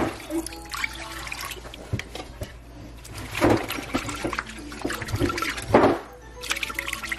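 Water pouring from a cup into a slow-cooker crock, then a whisk stirring the liquid, with louder splashing surges a few times.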